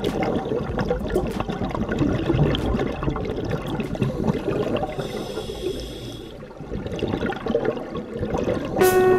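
Underwater gurgling and crackling of a scuba diver's exhaled bubbles, heard through the camera's waterproof housing, with a brief hiss a little past halfway. Music comes in near the end.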